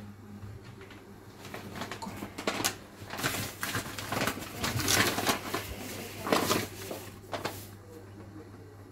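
Hands kneading soft yeast dough in a plastic bowl and working in more flour: irregular squishing, rustling and soft pats, busiest in the middle few seconds.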